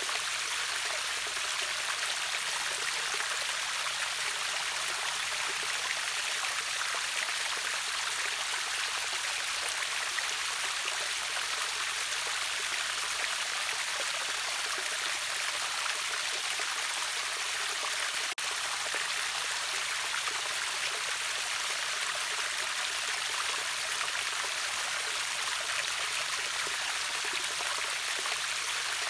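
Water rushing over a river waterfall: a steady, even hiss of falling and flowing water, heavy in the upper range. A single brief click with a momentary dip about two-thirds of the way through.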